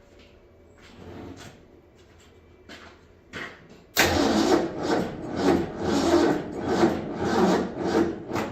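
Old Ford Bronco engine cranking on its starter motor, cutting in suddenly about four seconds in with a rasping sound that pulses about twice a second.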